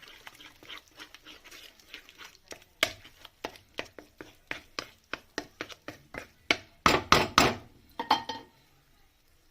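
A utensil beating three eggs in a kadai, striking the pan in quick, even taps about three to four times a second, with a louder flurry of strikes near the end.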